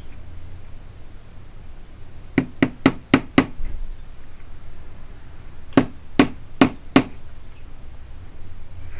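Sharp knocks against a hard surface while a car trunk lock cylinder is being worked on to get its wafers out: a quick run of five, then after a pause a run of four.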